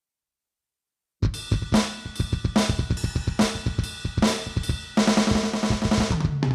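Aroma TDX-16S electronic drum kit's sound module playing a drum groove. It starts about a second in: kick, snare and hi-hat with a cymbal crash about every 0.8 s. Near the end, a tom fill falls in pitch.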